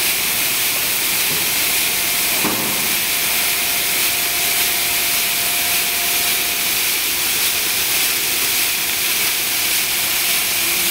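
Ice blown at force through a flexible corrugated hose into a fishing boat's hold: a steady, loud rushing hiss.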